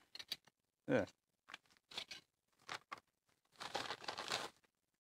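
Rustling and crinkling of a padded jiffy bag and a plastic parts bag being handled and opened, in short scattered bursts, with a longer rustle about four seconds in. A short vocal sound about a second in.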